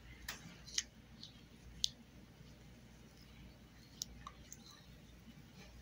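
A handful of small, sharp clicks and taps at uneven intervals as fingers press and shift a graphite-coated piece in a silicone mold of blue plating solution.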